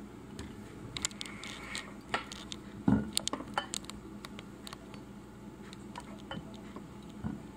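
Styrene plastic scale model pickup being handled: scattered light clicks and taps, with one louder knock about three seconds in.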